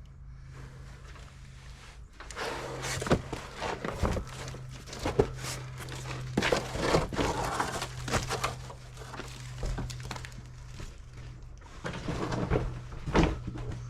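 Irregular knocking and clattering of tools and parts being handled, starting about two seconds in, over a steady low hum.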